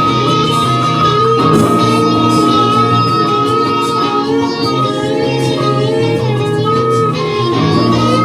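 Music: a long held high note over wavering melodic lines and sustained low bass notes.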